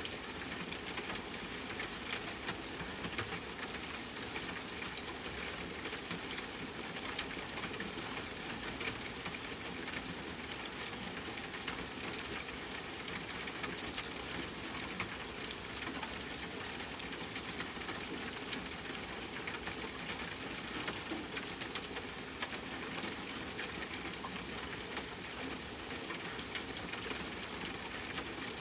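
Steady rain falling, a continuous hiss dotted with many small sharp drop taps.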